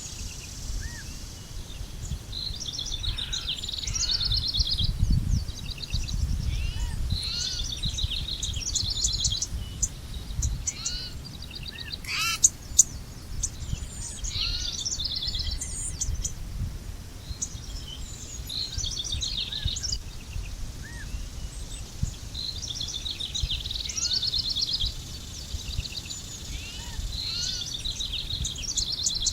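Songbirds singing, one repeating a short trilled phrase every few seconds, with scattered shorter chirps, over a low steady rumble. A brief sharp click about twelve seconds in.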